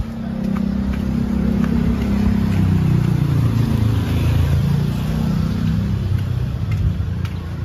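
A motor vehicle's engine running, growing louder after about a second, its pitch rising and falling as it speeds up and slows in the middle before easing off a little near the end.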